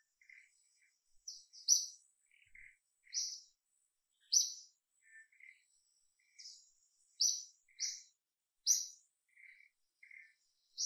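Birds chirping in the canopy: short, sharp high notes every second or so, with softer, lower chirps in between. A faint, thin, steady high tone runs under them through the first part.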